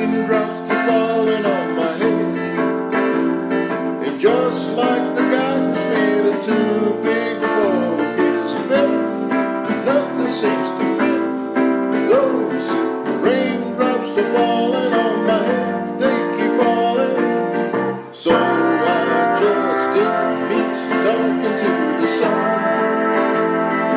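Instrumental music: strummed plucked strings, a ukulele or guitar, under a wavering melody line, with a brief break about eighteen seconds in.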